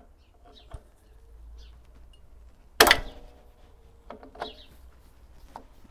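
Pliers and steel drum-brake parts clinking while a shoe hold-down spring and cap are fitted on a rear drum brake: a few light metallic clicks, and one sharp metal clank with a short ring about three seconds in.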